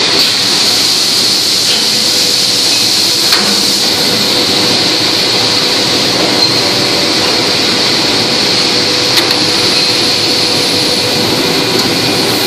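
TBC SD-350CF cold chamber aluminum die casting machine running with its extractor robot, a loud, steady mechanical hiss and hum with a faint steady tone. A few sharp clicks come about three seconds and nine seconds in.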